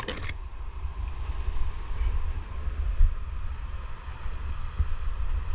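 Wind buffeting the camera microphone, an uneven low rumble, over a faint steady rushing hiss.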